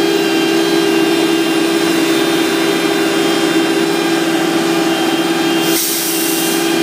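Asphalt paver's diesel engine running at a steady speed. A short burst of hiss comes about six seconds in.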